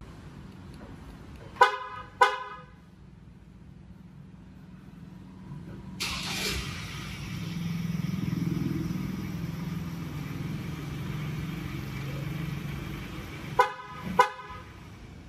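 Ford Everest's horn chirps twice as the remote start is triggered, then the engine cranks and starts about six seconds in and runs for about seven seconds. Near the end the engine shuts off and the horn chirps twice more.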